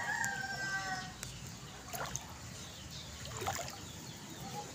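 Floodwater sloshing and splashing, with two sharper splashes about two seconds and three and a half seconds in.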